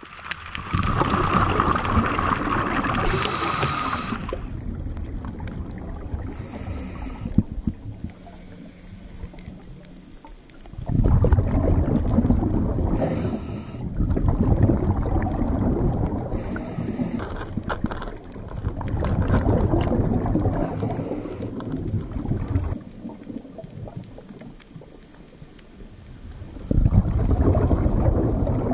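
Underwater recording: rumbling, gurgling surges of exhaled scuba bubbles, each lasting a few seconds, with quieter gaps and short hisses between them.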